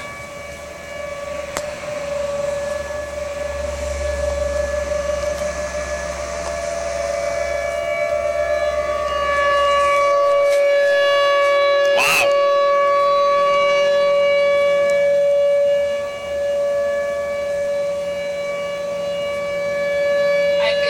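Tornado warning siren sounding a steady wail on one pitch, growing louder over the first ten seconds and briefly dipping about sixteen seconds in. A single sharp click is heard about twelve seconds in.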